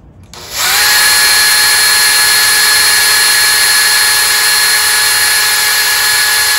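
Cordless drill with a small 5/64" bit boring through thin painted wooden boards and the shims between them. The motor spins up about half a second in, then holds a loud, steady whine.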